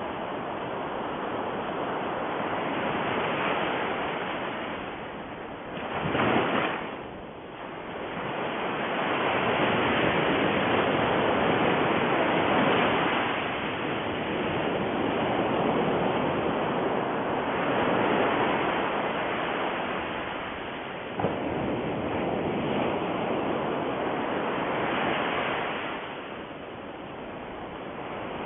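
A steady rushing noise, like surf, that swells and ebbs every few seconds, with a brief sharper swell about six seconds in and a small click about two-thirds of the way through.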